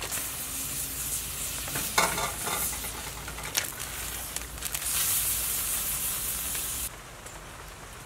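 A pot of soup boiling with a steady hiss while handfuls of green onion and cabbage drop and splash into the broth from a plastic basket, with a sharp knock about two seconds in. The hiss cuts off about seven seconds in, leaving a quieter background.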